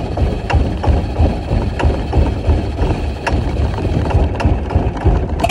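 Boat motor idling unevenly with sharp ticks now and then, still running after being switched off: it won't cut off.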